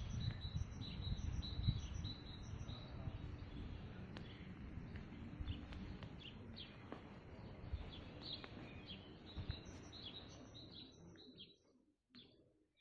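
Small birds chirping, many short high calls over a low rumble; the sound cuts out suddenly near the end.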